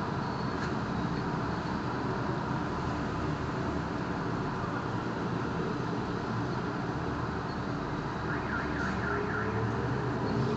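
Steady road-traffic noise at a busy city intersection: engines and tyres of cars and minibuses passing. About eight seconds in, a quick run of five short high chirps cuts through, followed by a rising whine near the end.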